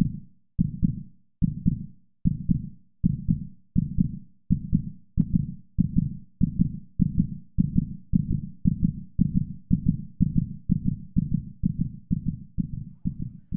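Heartbeat: paired low thumps (lub-dub) repeating evenly and gradually speeding up.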